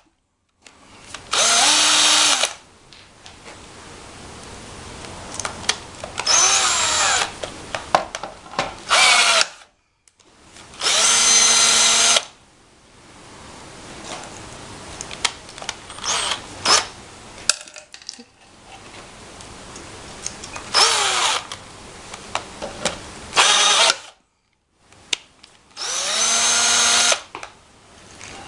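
Cordless drill driving a rivet-gun attachment in about seven short bursts, the motor spinning up and winding down each time as blind rivets are pulled and set one after another, with small clicks and handling noise between the bursts.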